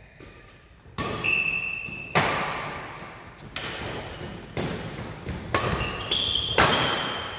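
Badminton rackets striking a shuttlecock in a rally, six sharp hits about a second apart, each echoing in the hall. Short squeaks of court shoes on the floor come between the hits.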